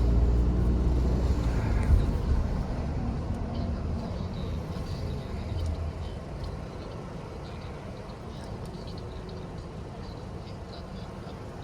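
Car cabin noise in a moving taxi: a low rumble of engine and road that is loudest in the first couple of seconds, with a single knock about two seconds in, then dies down to a quieter steady hum.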